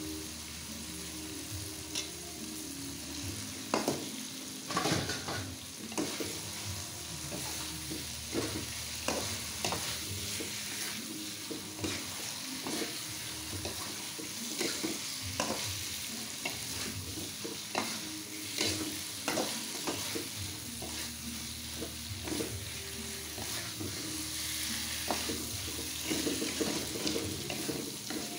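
Squid, egg and chilli sambal sizzling in a wok while being stir-fried, with a spatula scraping and knocking against the pan in irregular clicks through the steady sizzle.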